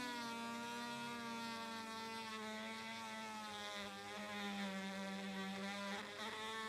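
Small electric power tool motor running steadily with a whine that wavers slightly in pitch, briefly unsettled about six seconds in.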